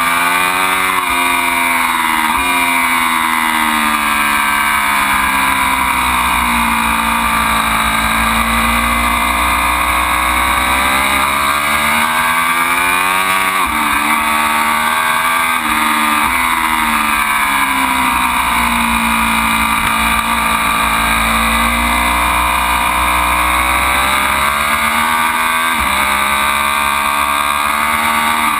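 Ducati Panigale V4's V4 engine running hard at high revs, its pitch climbing and dropping several times as the bike accelerates and slows. A steady low rumble, likely wind, runs underneath.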